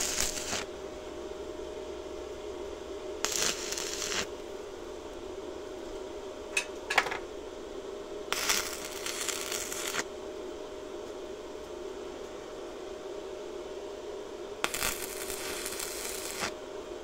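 Stick (MMA) electrode welding arc crackling in short welds of one to two seconds, four times, laying a steel cutting plate onto a log splitter's wedge, with one very brief arc strike about seven seconds in. A steady hum runs underneath.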